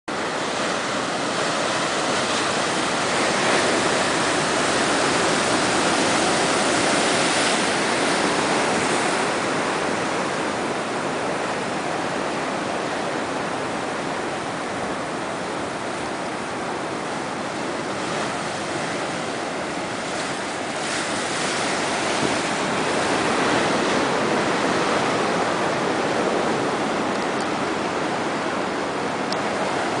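Ocean surf: a steady wash of breaking waves that swells louder for a few seconds and eases off again.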